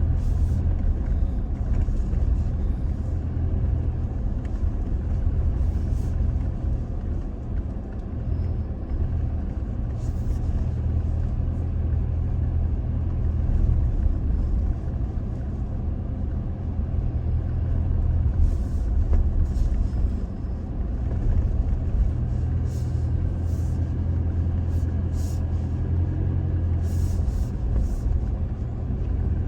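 Toyota Tacoma pickup driving slowly over a rough off-road dirt track: a steady low engine and drivetrain rumble, with scattered knocks and rattles as it goes over bumps.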